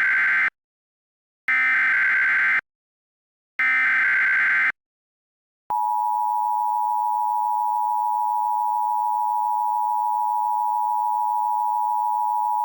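Emergency Alert System signal: the SAME header plays as three short, harsh digital data bursts about a second long each, the first already under way, with a second of silence between them. A little under halfway through, the steady two-tone EAS attention signal (853 and 960 Hz) begins and holds.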